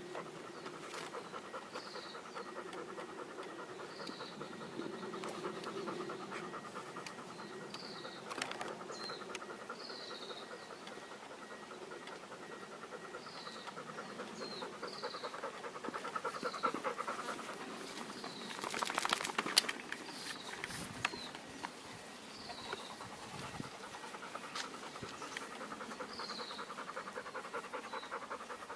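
A dog panting fast and steadily. Short high chirps repeat every couple of seconds over it, and a brief louder rustling burst comes about two-thirds of the way in.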